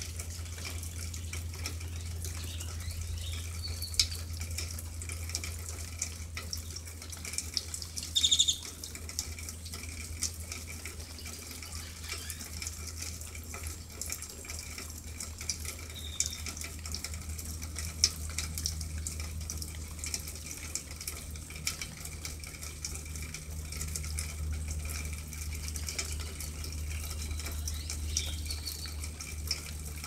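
Steady rain, with drops pattering and dripping close by over a steady low hum. A few short high chirps come through.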